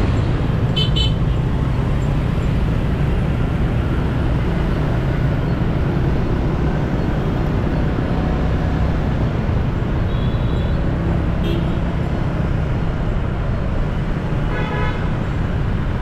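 Street traffic heard from a moving motorcycle: a steady low rumble of engines and road noise. Short vehicle-horn toots sound about a second in and again around ten and eleven seconds, and a longer honk comes near the end.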